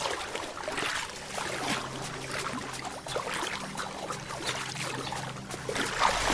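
A koala paddling through water, with uneven splashing and sloshing of the strokes. A faint low steady drone runs underneath from about a second and a half in.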